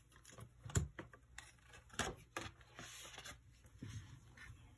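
Paper tab dividers and a ring-bound planner being handled: a few light clicks, the sharpest about a second in, and soft paper rustling.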